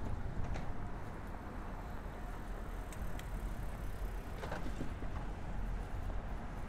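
City street ambience: a steady rumble of traffic, with a few faint clicks.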